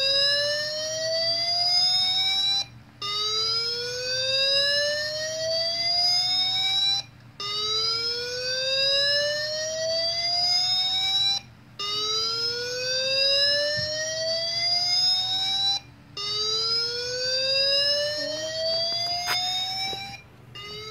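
Slow-whoop evacuation siren tone played back through small speakers (a Fender Mini Twin amp, an Altec Lansing speaker and a Bluetooth speaker): a loud rising sweep of about four seconds, repeated about five times with short breaks between sweeps.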